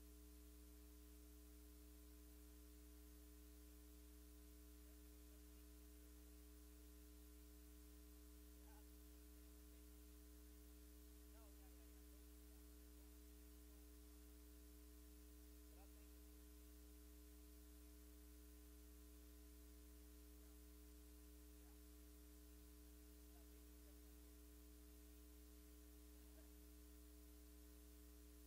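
Near silence: a steady low electrical hum.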